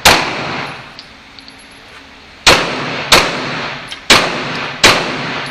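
Glock 17 9mm pistol firing five shots, each ringing on in the indoor range's echo. One shot comes at once, then after a pause of over two seconds come two pairs, each pair well under a second apart.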